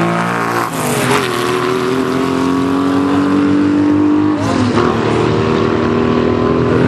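Sprint-race cars accelerating hard down the strip. The engine note drops in pitch as the car passes close just under a second in, then climbs slowly as it pulls away, with a brief dip at a gear change about four and a half seconds in.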